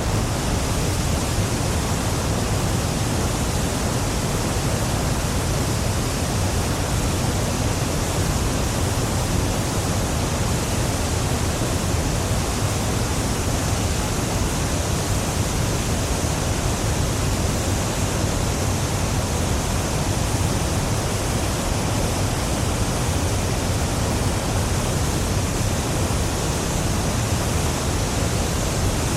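Niagara Falls: the steady, unbroken rush of a huge waterfall, a dense even roar of falling water with a low rumble beneath it.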